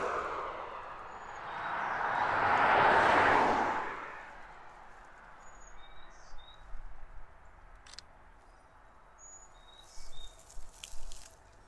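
A vehicle passes close by on the road, its tyre and road noise swelling and fading over about four seconds, just after another has gone by. Then a quiet rural background with scattered bird chirps and a few sharp clicks near the end.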